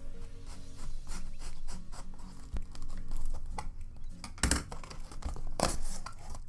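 Packaging being opened by hand: paper and plastic rustling and crinkling, with two louder rips about four and a half and five and a half seconds in.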